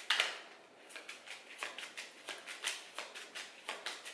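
A deck of tarot cards being shuffled by hand: a quick, irregular run of soft card slaps and flicks, the loudest one right at the start.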